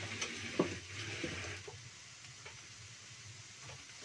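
Sliced shallots and garlic sizzling in a little oil in a non-stick wok, with a few light knocks of a wooden spatula against the pan. The sizzle drops to a quieter hiss about a second and a half in.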